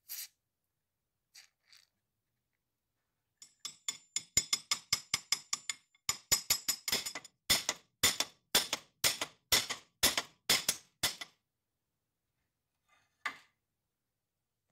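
Hammer blows on the gudgeon pin of an old piston and conrod held in a vise, driving the pin out: a run of ringing metal strikes, light quick taps at first, then harder blows about two to three a second. It stops about eleven seconds in, and one more knock follows.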